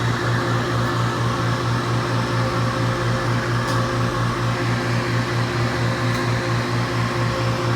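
Hydraulic elevator power unit running: the pump motor gives a steady low electric hum with a buzz of overtones, and a few faint ticks sound over it.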